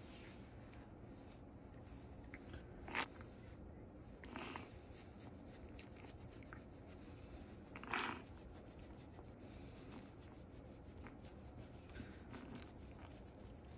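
Bristle brushes scrubbing a small dog's wet, shampoo-lathered fur, a soft rubbing, with a few brief louder rubs about three seconds in, again a second and a half later, and near eight seconds.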